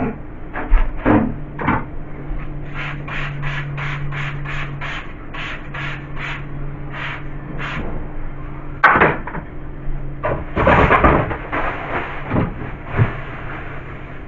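Hands-on fridge cleaning: knocks and clatter of fridge parts and containers being handled and set down, with a run of about a dozen quick, even scrubbing strokes in the middle, over a steady low hum.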